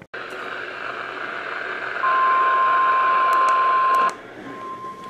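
Weather radio receiver hissing, then a steady single high tone starts about two seconds in: the NOAA Weather Radio 1050 Hz warning alarm tone that comes before a new warning message. The tone drops out briefly just after four seconds and comes back.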